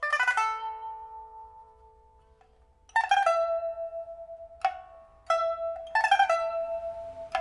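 Solo pipa with a red sandalwood body, newly fitted with a fire-baked soundboard and new frets, being plucked: a quick rolled chord at the start rings and fades for about two seconds, then another rolled chord about three seconds in, two single plucked notes, and a third rolled chord about six seconds in that keeps ringing.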